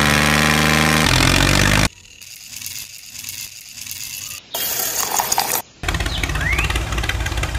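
A quick string of short cuts of small motors and model-tractor engine sounds, each switching off abruptly: a loud pitched engine drone, a quieter whirring stretch, a brief harsh burst, then a low engine rumble.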